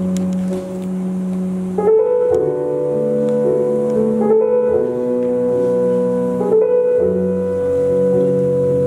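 Slow piano music of held chords, a new chord struck every two seconds or so.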